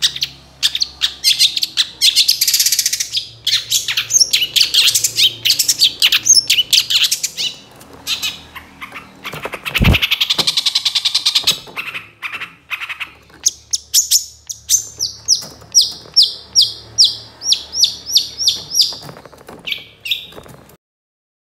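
Long-tailed shrike (cendet) singing: a fast, varied chatter of scratchy high notes, then past the middle a long run of quick repeated downward-slurred notes, about three a second, before it stops suddenly near the end. A single low thump comes about halfway through.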